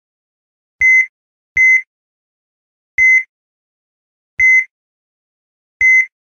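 Short, high electronic beeps: five identical ones, the first two close together and the rest about a second and a half apart, each stopping cleanly with silence between.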